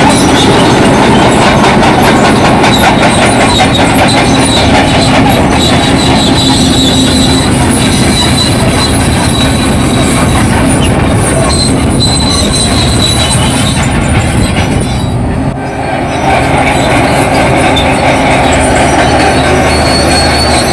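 Crawler bulldozer working: its diesel engine running under load with the steel tracks clanking, and a high track squeal that comes and goes.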